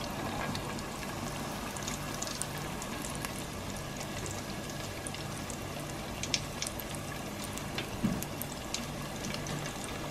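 Flattened green plantain slices deep-frying in hot oil in a stainless steel pot: a steady sizzle with scattered crackles and pops, the second fry that turns them into tostones.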